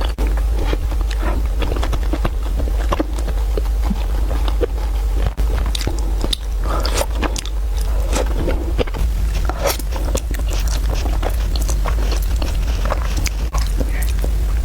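Close-miked eating: fried rice noodles being chewed, with wet mouth smacks and clicks at irregular moments, over a steady low hum.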